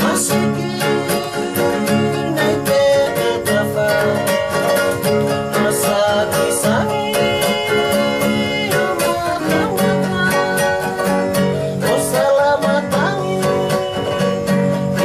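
Singing over plucked string instruments such as guitars, with a steady beat.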